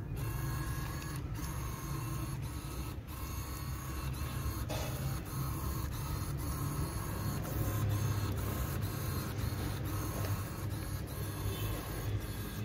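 Small geared DC motors of a wheeled robot car whirring steadily as it drives, with a few faint clicks.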